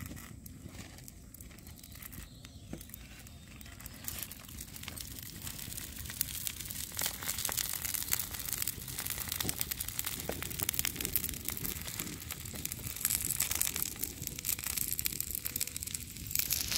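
Onion chakuli batter sizzling and crackling on a hot iron tawa over a wood fire, with oil dribbled onto it. The sizzle grows louder after about four seconds.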